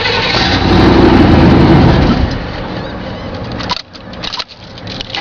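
1992 GMC K1500's 5.7-litre V8 running unevenly with an idle misfire. The sound swells about a second in, then drops away sharply for under a second near the end before picking up again.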